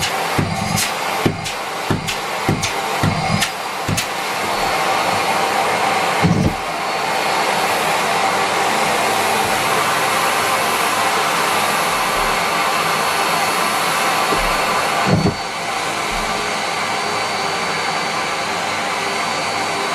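Miele Complete C3 canister vacuum cleaner running steadily at suction, with a quick run of knocks and clicks in the first few seconds. There are thumps about six and fifteen seconds in, each followed by a shift in the tone of the airflow.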